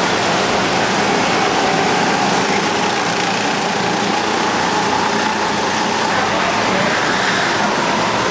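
Several go-kart engines running at once as karts drive through a corner inside a kart hall: a steady, continuous engine drone with a pitch that drifts slowly up and down as the karts speed up and slow.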